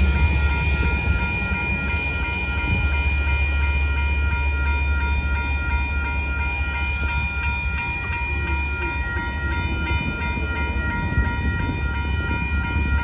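Railroad grade crossing warning bell dinging steadily over a low rumble.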